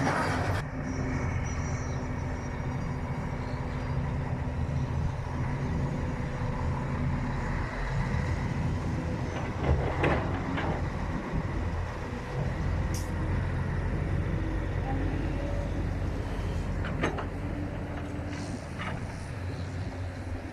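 Heavy diesel engines of an excavator loading a dump truck, running steadily, with a few short knocks about halfway through and again near the end.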